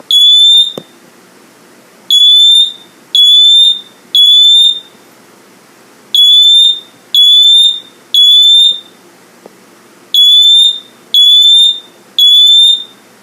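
First Alert Atom smoke detector's horn sounding its test alarm, really loud: a temporal-three pattern of three beeps a second apart, then a pause, repeating. Each beep is a short whoop that rises slightly in pitch. A single click just under a second in.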